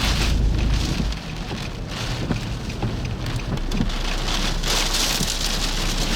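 Heavy rain pelting a vehicle during a tornadic thunderstorm, heard from inside the car as a dense patter of drops, with a deep rumble during the first second.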